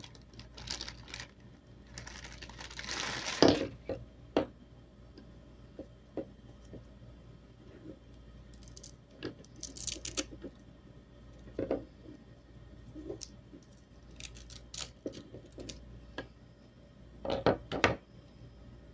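Plastic packaging rustling and crinkling as a laptop charger is unwrapped and handled, with scattered light clicks and knocks on a wooden tabletop. The loudest moment is a burst of crinkling about two to three seconds in, ending in a sharp knock, and another bout of rustling and knocks comes near the end.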